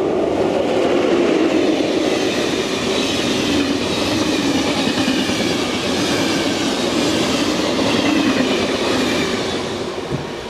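Electric passenger train, a class 362 locomotive and its coaches, passing close at speed: wheels rumbling and clattering over the rails. The noise eases off near the end as the last coach goes by.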